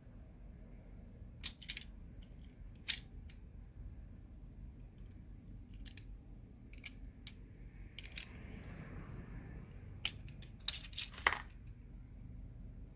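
Scattered sharp clicks and snips of small hand tools handled on small parts, a dozen or so separate ticks with a quick cluster near the end, and a brief soft rustle in between.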